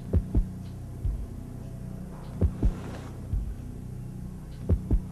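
Slow heartbeat sound effect: pairs of deep thumps about every two seconds, with a softer single thump between, over a steady low hum.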